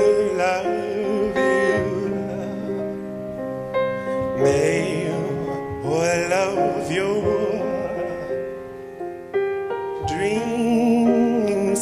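A slow song: a singer holds long notes with a wide vibrato over sustained piano chords.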